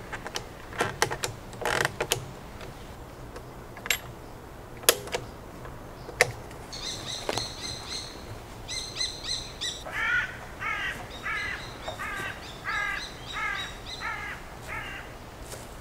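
A few sharp knocks and clicks of tools and timber being handled in the first half. Then a bird chirping in quick runs, and a crow cawing about ten times in a steady series near the end.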